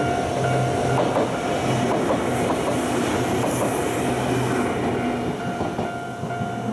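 Nankai electric train passing close by, its wheels clattering over rail joints, the noise easing as it clears near the end. A steady, pulsing electronic warning tone sounds underneath the train noise.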